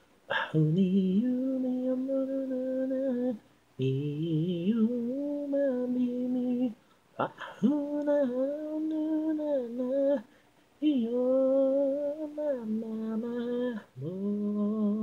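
A solo voice sings a cappella, with no instruments, in long held notes. The phrases last about three seconds each, with a quick breath between them, and several phrases begin with a short upward slide in pitch.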